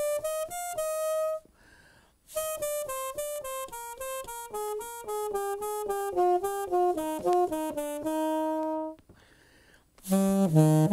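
Alto saxophone played inside a saxophone mute enclosure, running through quick phrases of short separate notes. There are brief breath pauses about two seconds in and near the end, followed by a lower, louder phrase.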